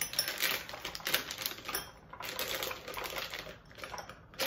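Clear plastic piping bag crinkling and crackling as it is handled and folded over the rim of a glass, in two spells of quick crackles with a short lull about two seconds in.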